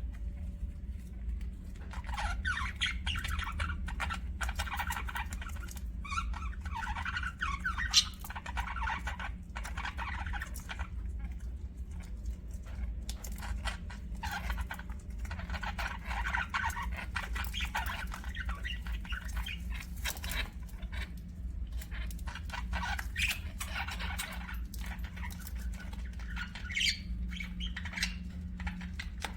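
Budgerigars warbling and chattering in bouts of a few seconds each, fast twittering mixed with sharp clicks and squawks, with short pauses between bouts.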